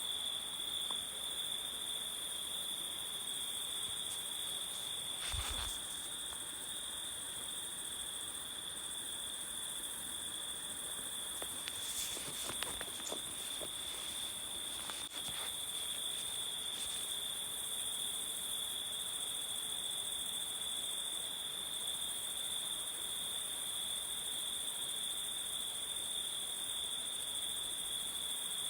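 Jungle ambience of a continuous insect chorus, a steady high-pitched drone at two pitches that never lets up, with a few brief faint sounds about a fifth and about half way through.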